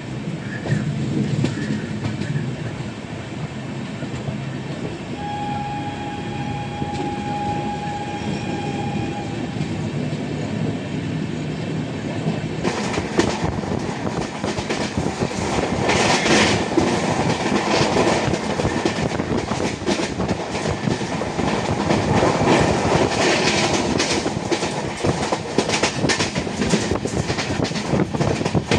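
A moving passenger train heard from on board: steady running noise with rail clatter from the wheels. About halfway through it turns louder and harsher, with dense rapid clicking over the rails.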